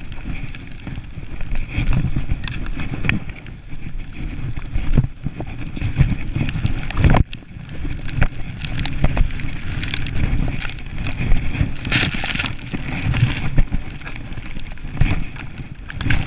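Wind buffeting a body-mounted camera's microphone during a fast ski run through deep powder, a rumbling rush that swells and fades, with the hiss of skis in snow and occasional sharp knocks, the strongest about seven seconds in.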